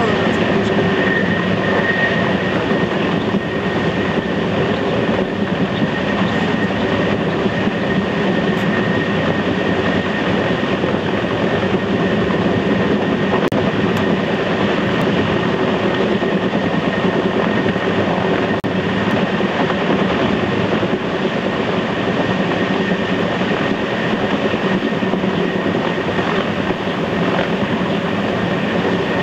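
Mi-10 flying-crane helicopter hovering close overhead: the loud, steady din of its twin turboshaft engines and large five-blade main rotor, with a thin, steady high whine running through it.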